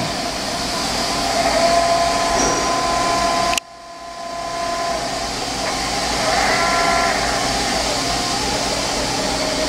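Fadal VMC 3016 CNC machining center running under power: a steady mechanical hum with a couple of steady whining tones. The sound cuts out abruptly about three and a half seconds in and swells back up over the next second or so. A brief higher whine comes about two-thirds of the way through.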